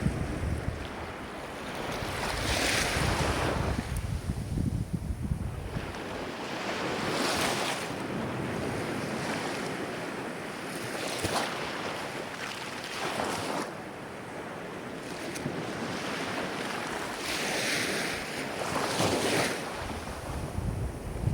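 Ocean waves washing ashore, the surf swelling and falling back every few seconds, with wind buffeting the microphone as a low rumble in the first few seconds and again at the end.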